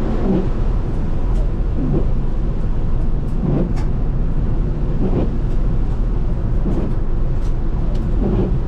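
Steady low rumble of a car driving at highway speed, with soft swells about every second and a half and a few faint ticks.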